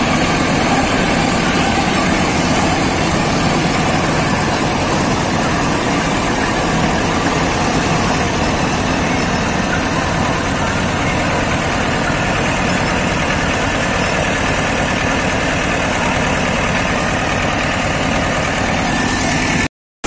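Kartar 4000 Crop Cruiser combine harvester running under load as it cuts and threshes the crop: its engine and threshing machinery make a loud, even noise. The sound cuts out briefly just before the end.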